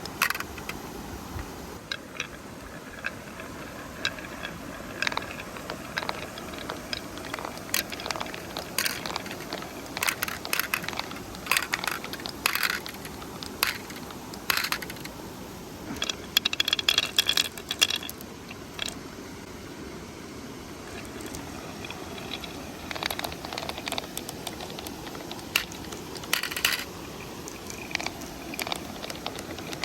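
Glass marbles clacking and rattling down a wooden zigzag marble run, in scattered sharp clicks with a dense run of clattering just past halfway, over the steady murmur of a stream.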